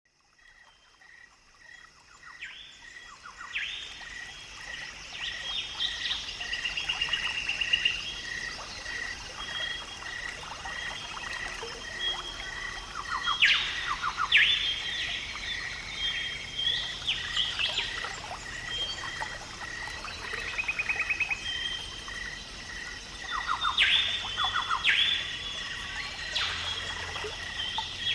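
Birds calling and singing, varied chirps and trills over a steady note repeating about every half second. It fades in over the first two seconds.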